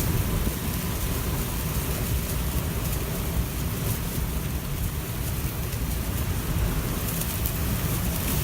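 Strong wind gusts buffeting the microphone with a heavy, flickering low rumble, over the steady hiss of wind-driven rain from a passing squall line.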